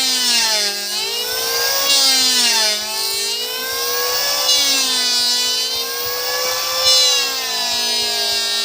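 Electric hand planer running at speed, its high motor whine dipping in pitch and recovering several times as it takes passes over wood.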